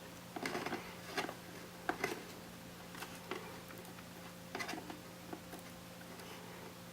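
Small plastic clicks and rustles of cable connectors being pulled off inside an opened 2009 iMac: a handful of short, separate clicks at irregular times, over a faint steady hum.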